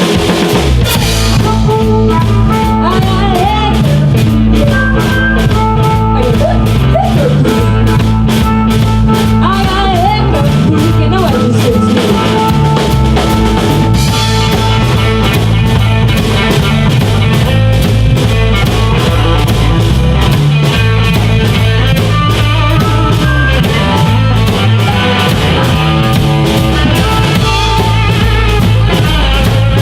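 A live blues band playing an up-tempo boogie: a steady, driving drum beat under bass and lead lines that bend in pitch.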